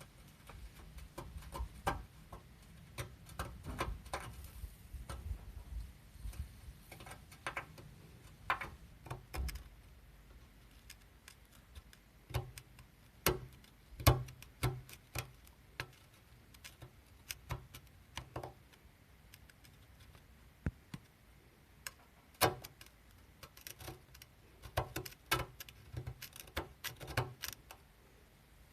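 Irregular light clicks and taps, with a few sharper knocks, at no steady rhythm.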